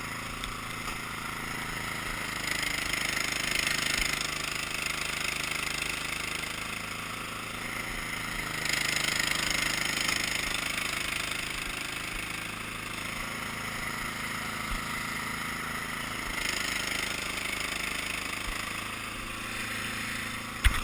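Cub Cadet's small engine running steadily, with a hissing noise swelling and easing back three times.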